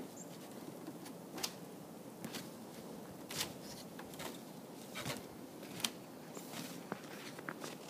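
Boots stepping down snow-covered wooden porch steps: faint crunching footfalls, roughly one a second.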